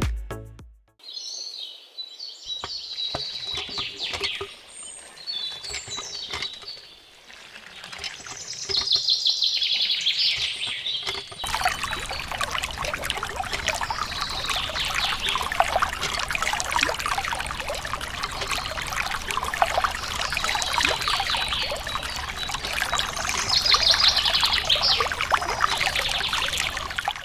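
Birds chirping, joined about a third of the way in by water pouring and trickling steadily.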